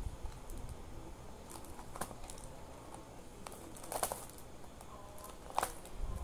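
Hands handling craft materials at a gift box: a few sharp light clicks and taps, the clearest about four seconds in and again near the end, with faint crinkling of plastic wrapping as adhesive pearl stickers are pressed along the box's rim.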